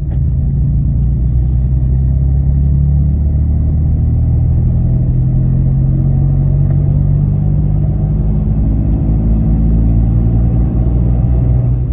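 Citroen C1's 1.0-litre three-cylinder petrol engine pulling in fourth gear from about 20 mph, heard inside the cabin. Its note rises slowly and steadily as the car gathers speed.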